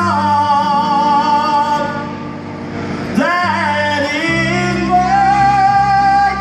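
Live band performance: a man sings long, held notes with vibrato into a microphone over a band with drums and bass. There are two sung phrases, the second ending on a long held note.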